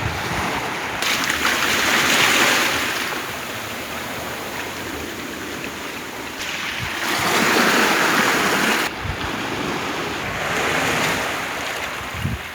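Sea waves washing in on the shore, the surf swelling and falling back three times.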